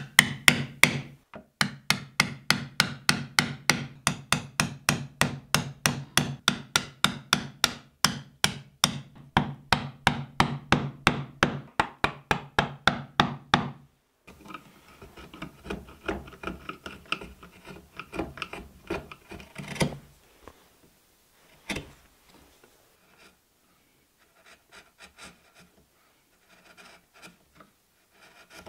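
Chisel driven into oak by mallet blows: a steady run of sharp knocks, about three a second, that stops about halfway through. Then the chisel is pushed by hand, paring and scraping the oak with quieter, scattered rubbing and a couple of single knocks.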